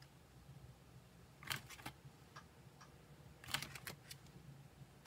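Plastic binder sleeve pages being handled and turned, giving two short crinkling rustles about two seconds apart, with a few light ticks between them.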